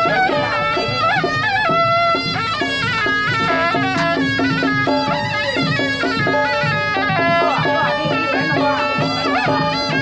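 Traditional Taiwanese temple music: a loud, reedy double-reed horn of the suona type plays a melody that steps from note to note over a steady low drone.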